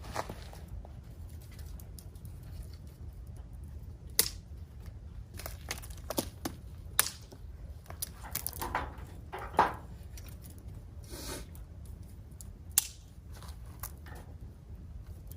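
Wood fire crackling: sparse sharp pops and snaps at irregular intervals, with a few longer crunching, rustling sounds around the middle.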